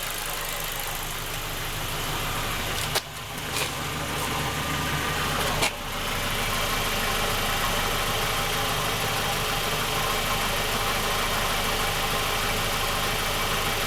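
Ford Focus II engine idling warm and steady, with a dull, hollow hum like in a pipe, coming from somewhere underneath. Two sharp clicks, about three and six seconds in.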